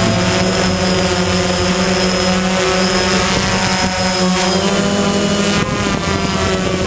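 DJI Phantom quadcopter's four electric motors and propellers whirring steadily in flight, heard through the camera on the drone itself; the pitch pattern shifts about five and a half seconds in.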